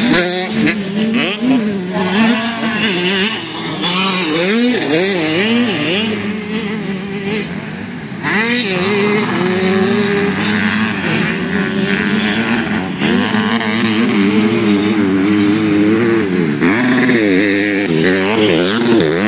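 Several motocross bikes racing, their engines revving up and falling back through gear changes, with the pitches of more than one engine overlapping.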